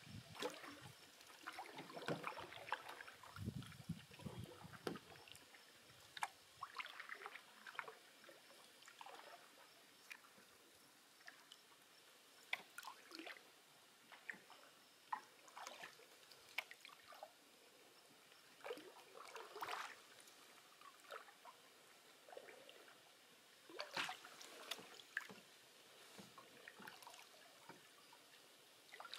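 Canoe paddle strokes on calm water: small irregular splashes, trickles and drips from the blade, every second or two.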